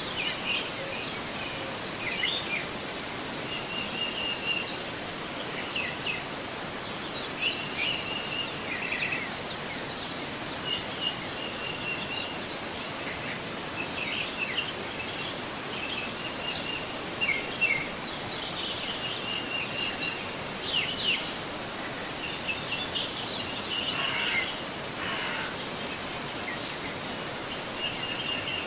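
Steady rush of a forest river flowing over its bed, with small birds chirping and trilling repeatedly over it.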